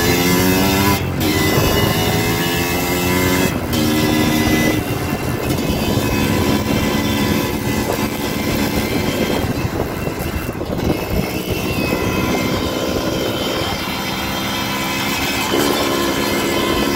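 Dirt bike engine under load, its pitch climbing and then dropping sharply about a second in and again about three and a half seconds in, like upshifts, then running rougher at changing throttle, with the revs rising again near the end.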